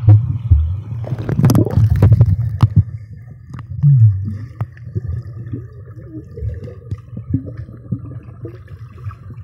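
Muffled underwater sound picked up by a camera in a waterproof case submerged in a swimming pool: a low rumble and gurgling water with clicks and knocks, loudest in the first three seconds, then quieter with scattered knocks.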